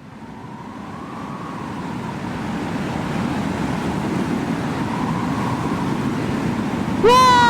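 Wind blowing, steadily growing louder, with a faint wavering whistle. Near the end a loud, steady high tone cuts in with a quick upward swoop.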